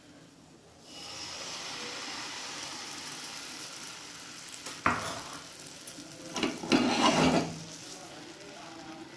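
Semolina uttapam batter sizzling on a lightly oiled nonstick pan, a steady hiss that starts about a second in. Partway through there is a sharp knock, and a couple of seconds later a short burst of louder scraping and clatter from a utensil working in the pan.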